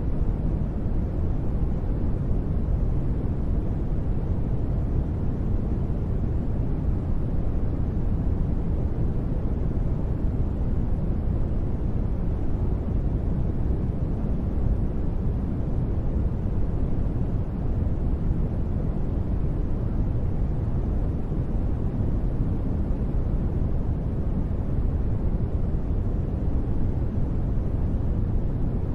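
Continuous generated sleep noise: a steady, even hiss weighted heavily to the low end, deep rather than bright, with no changes or sudden sounds.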